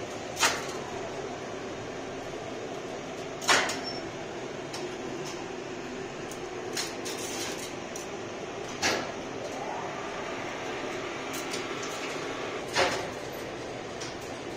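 1987 KONE SSP relay elevator controller: relays clacking loudly four times, a few seconds apart, with lighter clicks between, over a steady machine-room hum. A brief rising whine follows the third clack.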